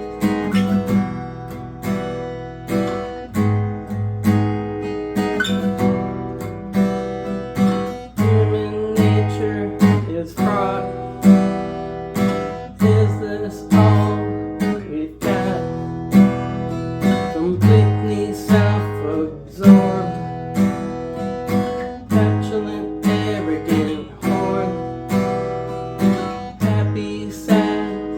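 Acoustic guitar strummed in a steady rhythm, moving through a chord progression as an instrumental intro.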